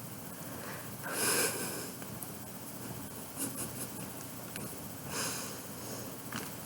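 A person's nose breathing: two sharp sniffs or snorts, one about a second in and a weaker one about five seconds in. A few faint short clicks come in between and near the end.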